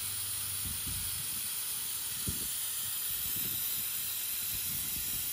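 Refrigerant gas hissing steadily as it vents from an O General 4-ton ducted AC unit's opened connections, releasing the system pressure so that the faulty compressor can be removed. A light knock comes about two seconds in.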